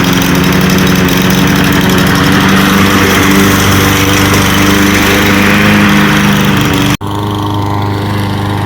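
Walk-behind gas lawn mower engine running steadily while mowing. It cuts off abruptly about seven seconds in and resumes at once, slightly quieter.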